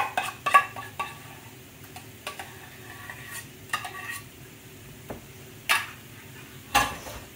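A metal spoon scraping and clinking against a small glass bowl, scooping out mayonnaise mixture, with a few short ringing clinks in the first few seconds and two short scraping noises near the end. Under it, a faint sizzle of onions simmering in a pan.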